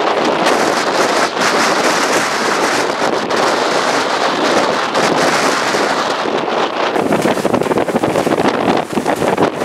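Strong wind blasting straight onto the microphone: a loud, rough rush with no steady tone. It turns choppier and more buffeting in gusts over the last few seconds.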